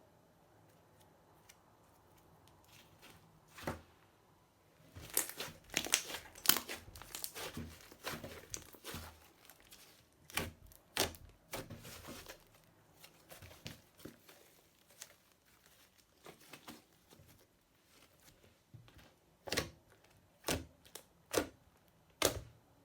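Slime being squeezed and stretched by hand, giving sharp crackles and pops. They come thick and fast for several seconds, thin out, then four louder separate pops come near the end.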